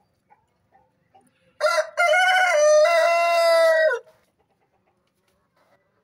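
Rooster crowing once, starting about a second and a half in: a short opening note, a brief break, then a long held note that drops in pitch at the end, about two and a half seconds in all.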